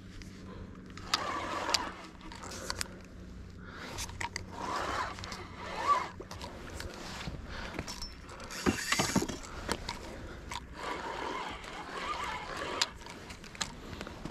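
Irregular scrapes, rustles and sharp clicks of handling noise as an angler works a landing net and rod to bring in a hooked fish, with a brief hissing scrape or splash about nine seconds in.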